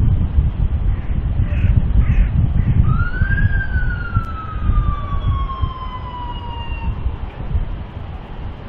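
Low rumble of heavy vehicles and wind. A few short harsh calls come about two seconds in. Then an escort police siren gives a single wail that rises briefly and falls slowly over about four seconds.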